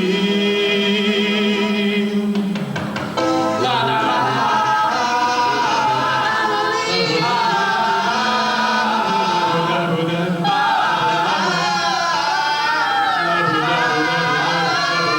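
Sung music with backing accompaniment: a long held vocal note ends about three seconds in, then several voices sing on over the music.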